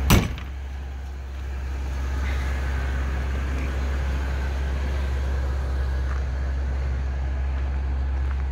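A motorhome's entry door slammed shut once at the start, followed by the Class A motorhome's engine idling with a steady low hum.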